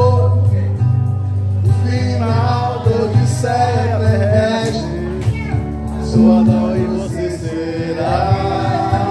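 A man singing into a microphone over an amplified acoustic-electric guitar, a live solo vocal-and-guitar performance with sustained low bass notes underneath.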